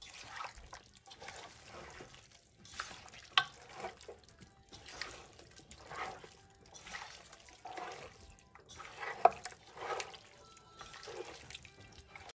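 Wet squelching of a bare hand mixing raw beef chunks with oil, onion and spice paste in a metal pot, in repeated strokes about once a second, with a couple of sharper clicks.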